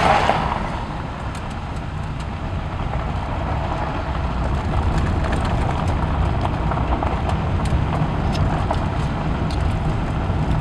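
Car driving on a dirt and gravel road, heard from inside the cabin: a steady low rumble of tyres and engine, with scattered light ticks from about a second in. A brief louder rush at the very start.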